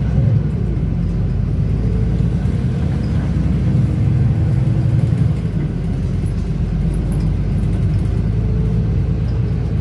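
A bus moving along the road, heard from inside: engine and road noise make a steady low rumble.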